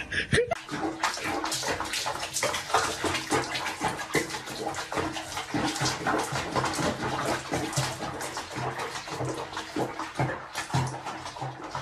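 Bathwater sloshing and splashing in a sink basin around a cat being bathed: a dense run of small splashes.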